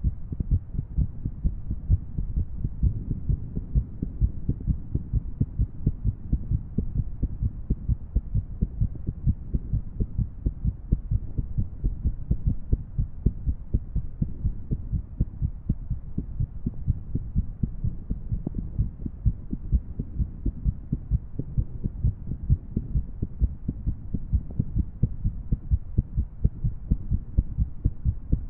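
A woman's recorded heartbeat, heard as a continuous run of muffled low thuds with an irregular rhythm.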